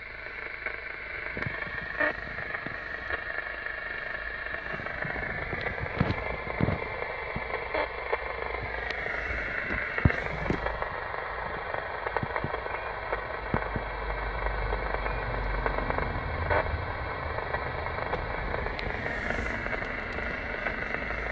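Steady hiss and crackle from a two-way radio receiver's speaker as the operator listens for a reply on the channel, cut off above a fixed pitch, over a low rumble, with a few faint clicks.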